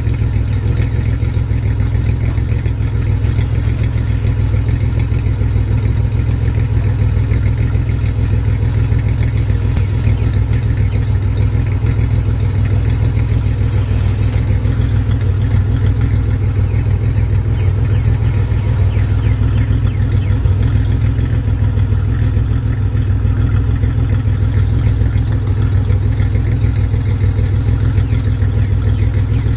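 Chevy Beretta Z26 idling steadily through a custom 2.5-inch exhaust, a low, even exhaust note.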